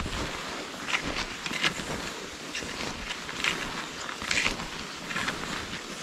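Skis swishing and crunching through snow in a steady stride rhythm, about one stride a second.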